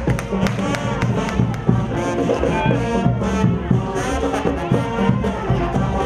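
Lively brass band music with a steady drum beat.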